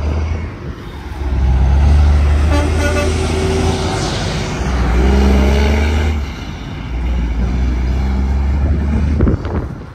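Semi-trucks passing on the highway one after another, a deep engine-and-tyre rumble swelling three times. A brief horn toot sounds about two and a half seconds in.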